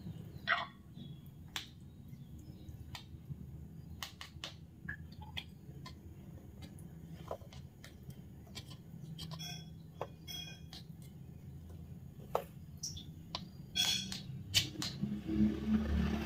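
A metal spoon scraping and tapping against a small plastic cup mould and a glass bowl as grated cassava dough is scooped and pressed in: scattered light clicks and scrapes over a low steady hum.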